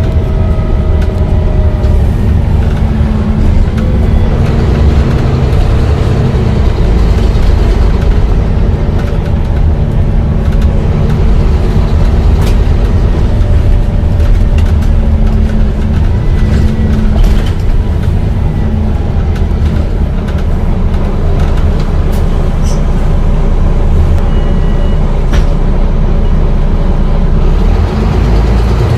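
Volvo B9TL double-decker bus engine running, a steady low drone.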